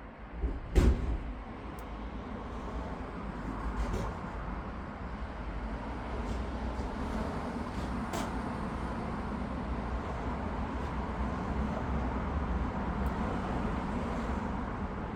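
A garden machine's motor running steadily, with a sharp knock about a second in.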